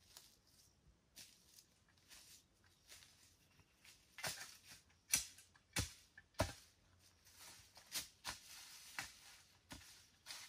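Footsteps crunching over dry leaves, twigs and brush in an irregular series of short cracks and rustles, sharpest about four to seven seconds in.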